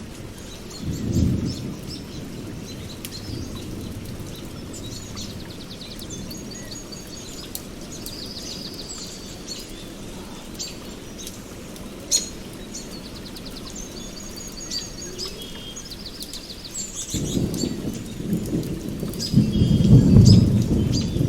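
Steady rain with scattered drops, rolling thunder and birds singing. A short rumble of thunder comes about a second in, and a longer, louder one builds near the end, over repeated high bird trills.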